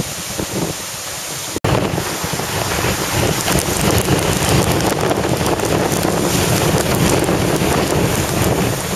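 Strong hurricane wind buffeting the microphone over surf. It cuts out for an instant about a second and a half in, then comes back louder.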